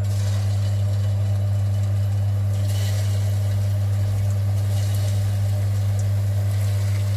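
Hot frying oil sizzling as raw meatballs are dropped into the pan one by one, the sizzle growing stronger about two and a half seconds in. Under it runs a loud, steady low hum.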